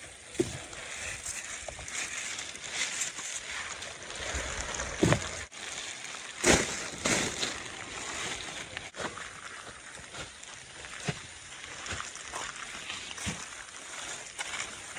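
Wet mud and water sloshing and splashing, with a steady noisy background and scattered knocks, the loudest about six and a half seconds in.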